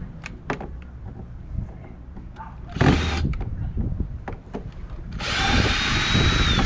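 Power drill driving out bolts: a short burst about three seconds in, then a longer run near the end whose whine drops as it stops, with knocks from metal parts being handled between.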